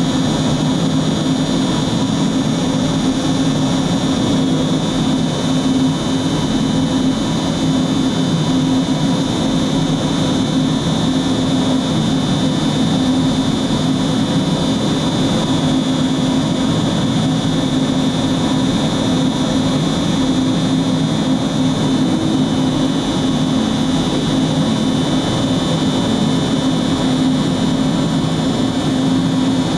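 MultiCam 5000-series CNC router running as its spindle head moves across a plywood sheet: a steady high whine over a lower drone that does not change.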